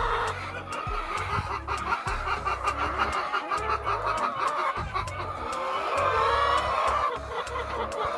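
Laying hens clucking, many short overlapping calls, over background music with a steady beat.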